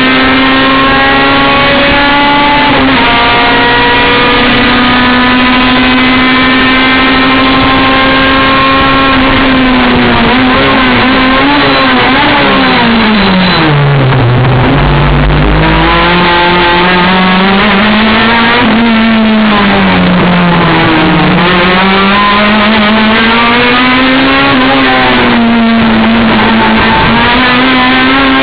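Racing car engine at high revs under hard throttle. The pitch holds high and climbs for several seconds, then drops steeply as the car slows and downshifts. After that it rises and dips again through the following corners, with a brief low rumble near the middle.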